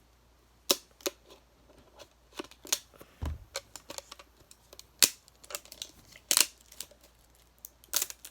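A fidget-toy package shaped like a lunchbox being handled and opened: a string of irregular sharp clicks and short rustles, with a brief low thud about three seconds in.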